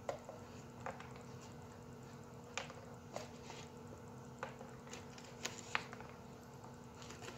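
Scattered sharp clicks and light taps, about nine in all and irregularly spaced, as a dog noses at a small cardboard box and its handler works at it with her hands, over a faint steady hum.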